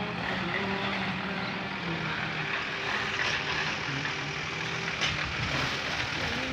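Steady rushing outdoor background noise, with a faint tune of held notes running underneath.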